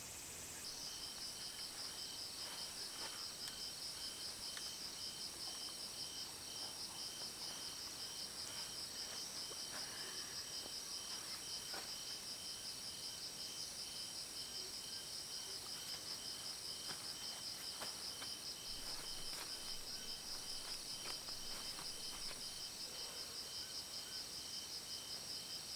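Chorus of crickets or similar insects calling at night: several overlapping high-pitched trills, each pulsing in an even rhythm, starting just under a second in and going on steadily.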